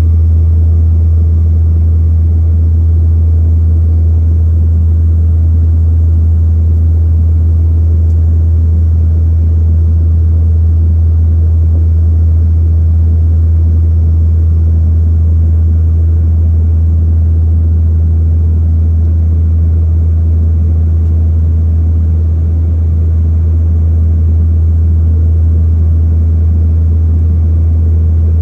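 Steady low drone of a propeller plane's engines and propellers heard inside the cabin in flight, with no change in pitch.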